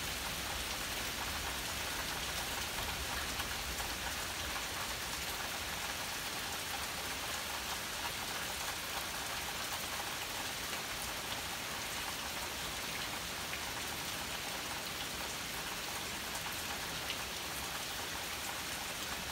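Steady rain falling, an even hiss with scattered single drops ticking through it.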